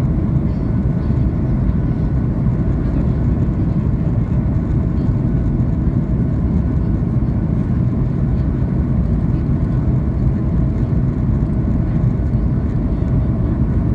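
Steady low rumble of a Boeing 737 jet in flight: engine and airflow noise, even throughout, with a faint steady whine above it.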